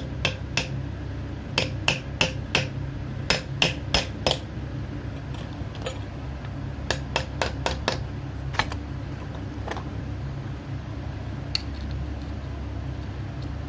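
Small hammer tapping a steel punch in quick runs of light metal strikes, about three a second, driving a metal ferrule band onto a knife handle. A few single taps follow near the end, over a steady low hum.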